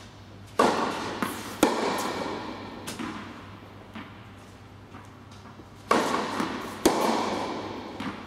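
Tennis balls struck by rackets and bouncing on an indoor hard court. There are loud hits in two pairs about a second apart, one pair near the start and one about six seconds in, with softer bounces between them. Each hit rings on in the hall's long echo.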